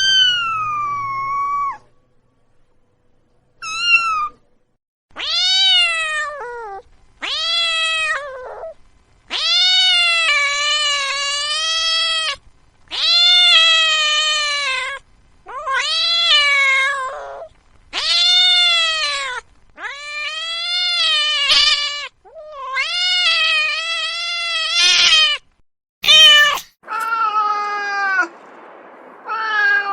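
A domestic cat meowing over and over: about a dozen long, drawn-out meows in a row, each one to three seconds, rising then falling in pitch, with short pauses between. A sharp click comes near the end.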